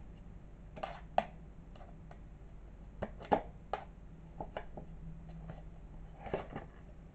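A kitten pawing at and bumping into a cut-open paper milk carton: irregular light knocks and scrapes, coming in short clusters about a second in, around three to four seconds in, and again near the end.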